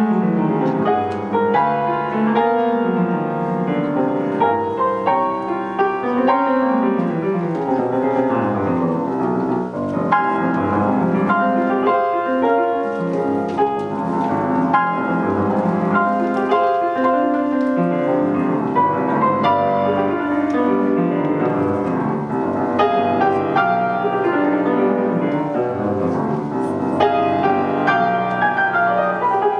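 Solo grand piano playing a continuous flowing piece, full of quick runs of notes sweeping up and down the keyboard.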